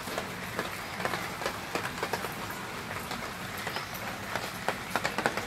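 Steady hiss of rain falling, with scattered small taps and clicks throughout.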